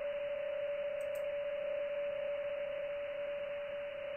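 A PSK31 digital-mode signal received in upper sideband on 20 metres: one steady tone a little above 500 Hz, wavering slightly in level, over shortwave receiver hiss. Two faint clicks about a second in.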